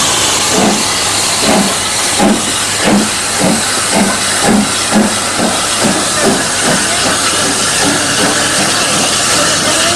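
Steam locomotive hissing loudly with escaping steam, with a regular beat about twice a second that dies away about seven seconds in.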